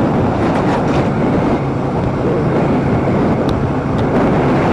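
Motorcycle running steadily on the move, its engine hum buried under heavy wind rush on the microphone.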